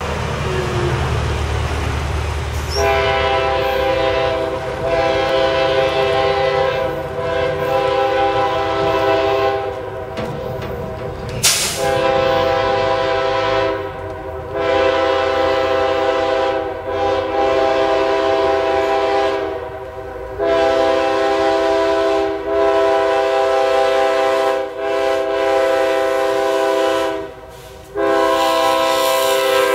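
Air horn of an approaching CSX freight diesel locomotive sounding a series of long blasts with short breaks, a chord of several steady notes, over the low rumble of the train. One sharp click about a third of the way through.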